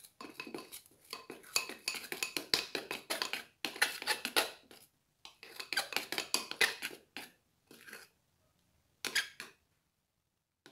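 Metal spoon stirring a glue, detergent and shredded toilet-paper slime mixture in a glass bowl, scraping and clinking against the glass in quick, busy strokes. The stirring breaks off briefly about halfway, picks up again, then thins to a few strokes and stops a little before the end.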